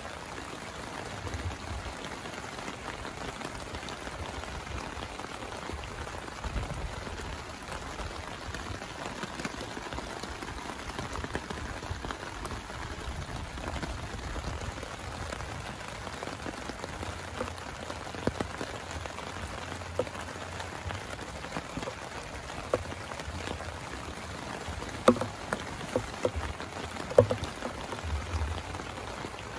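Rain falling steadily, with scattered sharp drop impacts that come more often and louder in the second half, several loud ones near the end.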